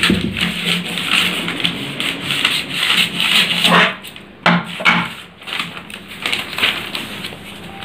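Large tailoring scissors cutting through folded newspaper in a run of crisp snips, followed by paper rustling as the cut sheets are pulled apart. A couple of sharp knocks come about halfway through.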